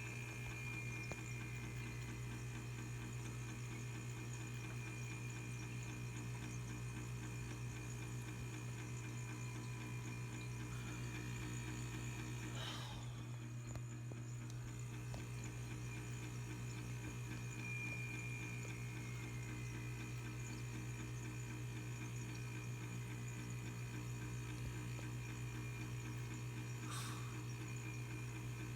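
Failing refrigerator fan motor running with a steady low hum. A faint high whine dips down in pitch twice, and there are two soft clicks. The owner calls the fan toast: its motor is on its way out.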